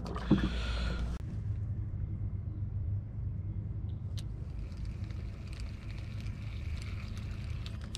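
A low steady rumble on the microphone. A brief hiss in the first second cuts off suddenly, and from about halfway through come a few faint ticks as fishing tackle is handled.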